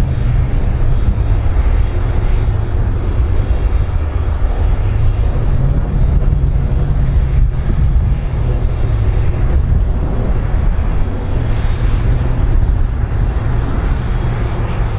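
Airbus A310-304 airliner's jet engines as it rolls along the runway: a loud, steady engine rumble, heaviest in the deep bass, without letting up.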